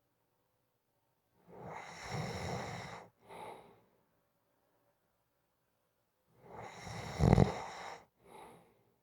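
A person snoring. There are two long snores a few seconds apart, each followed by a short, softer breath. The second snore is louder, with a brief strong low rattle in its middle.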